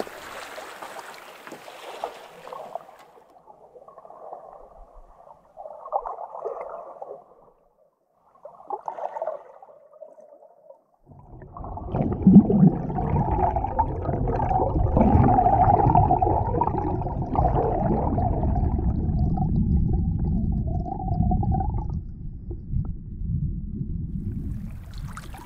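Muffled underwater sound from a camera held below the lake surface: water rumbling and sloshing against the microphone. It starts in scattered patches, then becomes a continuous low rumble about halfway through.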